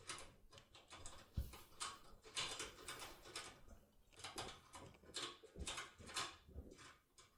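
Faint, irregular metallic scraping and clicking of a lock impression tool being jerked and swung inside an AGB Genio lock cylinder, forcing the lock open.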